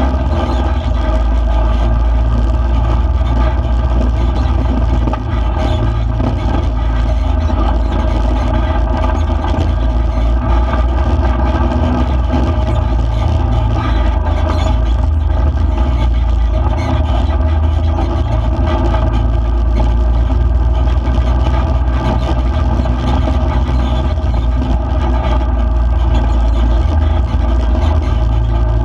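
A vehicle's engine running steadily under a heavy low rumble from driving on a rough dirt road.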